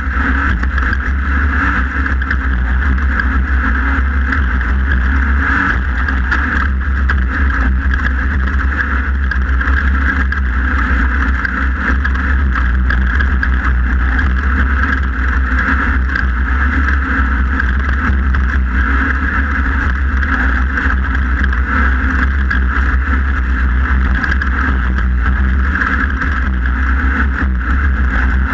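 Onboard sound of a Class 1600 off-road race car driven hard: its engine runs loud and steady at speed, with many small knocks and rattles from the chassis over rough ground.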